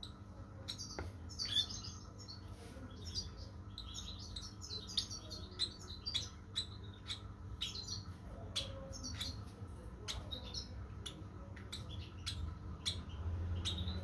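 Young lovebird chirping: many short, high chirps at an uneven pace, with faint clicks in between.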